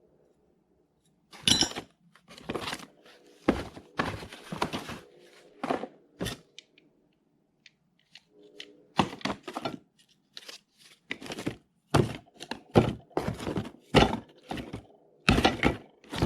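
A run of irregular knocks and clatters as hard tool accessories are handled and set down, some with a scraping or tearing edge, over a faint steady hum.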